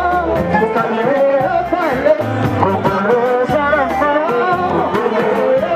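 Music playing loudly: a singing voice over a repeated bass line.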